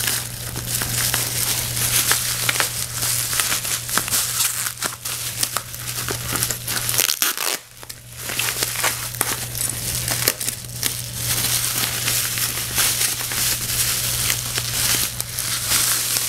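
Plastic bubble wrap crinkling and crackling as it is handled and pulled off a lightsaber hilt by hand, with a short lull about seven seconds in.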